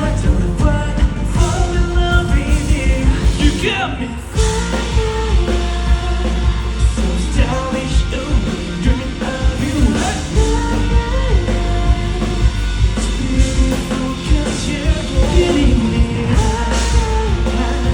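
Live band playing an upbeat rock song with a voice singing over it. The music drops away briefly about four seconds in, then comes back.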